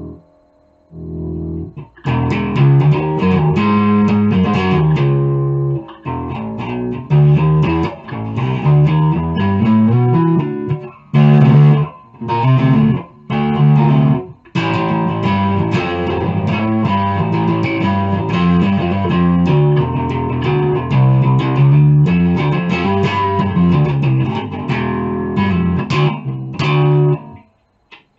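Electric bass guitar, a Chinese neck-through copy of a Rickenbacker bass, played in a long run of plucked notes. The notes begin about two seconds in, break off briefly a few times near the middle, and stop just before the end.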